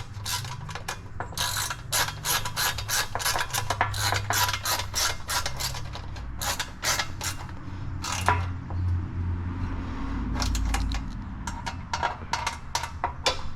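Ratchet wrench clicking rapidly as a fastener on a car's air intake is run down and snugged. The clicking stops for a couple of seconds in the middle, then starts again. A steady low hum runs underneath.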